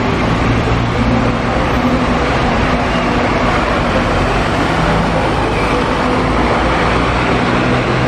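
Double-decker bus driving past and away, its engine running with a steady low drone over street traffic noise.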